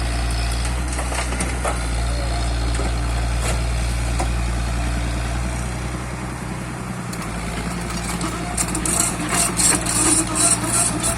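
Diesel engine of a Komatsu PC78UU excavator running steadily. From about eight seconds in, irregular clattering and scraping joins it.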